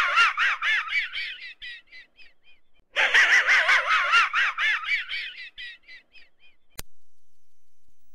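A quick run of high rising-and-falling chirps, about five a second, fading away, played twice the same way; a sharp click follows near the end, then a faint steady hum.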